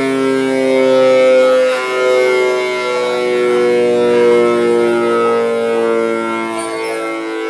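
Air raid siren sounding during a test: a loud chord of several tones held together, their pitches slowly sliding down and up.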